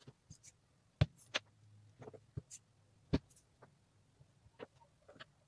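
Wooden clothespins clicking and tapping against each other and on a table top as they are pressed into place, a dozen or so irregular sharp taps, the loudest about one and three seconds in.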